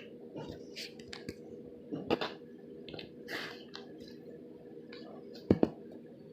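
Play-Doh being squished and kneaded by hand, with soft sticky squelches and small clicks. Two sharp knocks come close together near the end, over a faint steady hum.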